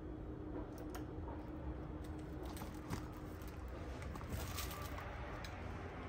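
Quiet room with a low steady hum and a few faint, scattered clicks and rustles.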